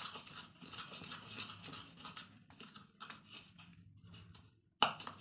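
Pestle (ulekan) grinding and crushing chilies and garlic cloves in a cobek mortar: an uneven run of scraping, crunching strokes with small clicks, and one sharp knock of the pestle against the mortar near the end.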